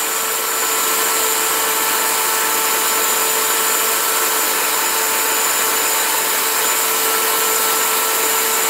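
Cuisinart electric hand mixer running steadily, its beaters whipping egg whites to stiff peaks in a glass bowl: an even motor whine over a whirring hiss.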